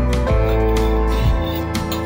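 Background music: plucked guitar melody over held notes.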